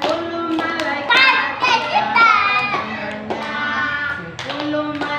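A group of young children singing a chant together, clapping their hands in time.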